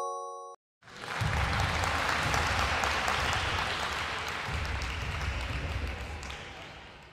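The ringing tail of a rising chime dies away, then a stretch of recorded crowd applause starts about a second in and fades out near the end.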